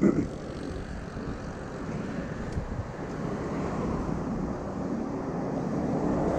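Yamaha MT15's single-cylinder engine running on the road under steady wind rush on the microphone, the sound slowly swelling towards the end.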